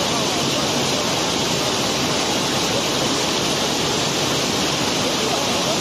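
Cobblestones pouring and sliding down the sloped floor of a barge hold during unloading: a steady, unbroken rush of many small stone-on-stone and stone-on-steel clatters.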